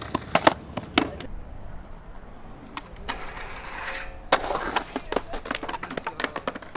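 Skateboard grinding down a metal stair handrail, a steady scrape with a faint ring for about a second, then a sharp smack of the landing about four seconds in, followed by wheels rolling and the board clattering on pavement.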